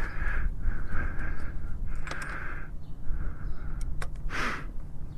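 Ratchet wrench with an 8 mm socket working a bolt: a short buzzing rasp about once a second, with a few sharp clicks and a louder rasp about four and a half seconds in.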